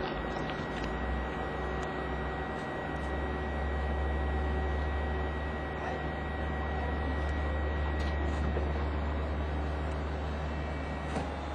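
Rail shunting machinery running: a steady low engine drone that grows louder about three seconds in, with a thin steady whine above it.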